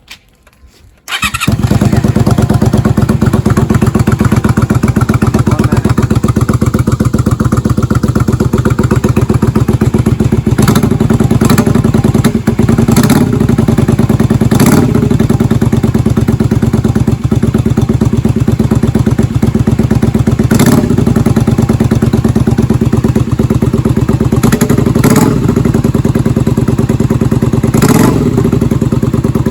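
Honda Magna 250's V-twin engine starting about a second in and running loudly through drag-pipe mufflers fitted with a new silencer insert, with a few short louder blips. The note is a little lower and less crackly with the silencer in, but still loud.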